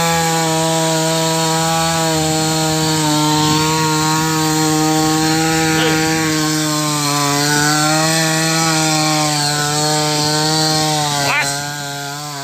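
Two-stroke chainsaw held at full throttle, cutting into the base of a tree trunk; its high, steady engine note sags slightly now and then under load. About eleven seconds in, the revs and loudness drop as the throttle eases.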